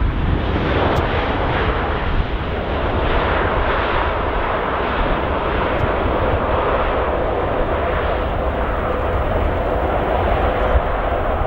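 Airliner noise during a landing: a steady, loud rush of engine and air, with a faint steady tone coming up in the second half.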